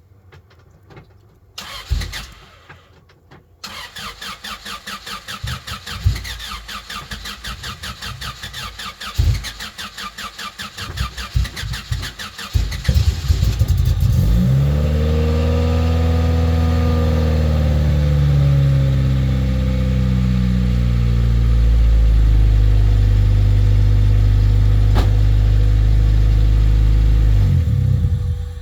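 Honda Civic EK engine cranking on the starter for about ten seconds before it catches, flares up in revs, then settles into a steady idle. A reluctant cold start after sitting for weeks: it didn't want to turn on, but it did. The sound cuts off abruptly just before the end.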